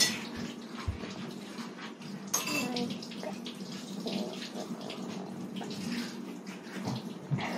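Light taps and scrapes of plastic training chopsticks against a plate, over a steady low hum and hiss of room noise.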